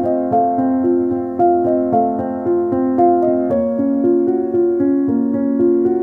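Background piano music playing an even run of notes, with the harmony shifting lower about halfway through.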